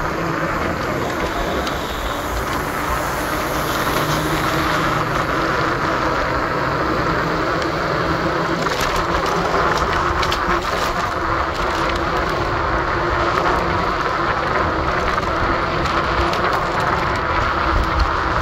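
Steady city or station background noise: a continuous low rumble and hiss, like traffic or a train, with no single event standing out and a few faint clicks about halfway through.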